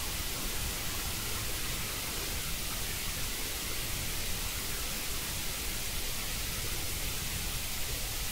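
Steady hiss of background noise with a low rumble underneath, even and unbroken.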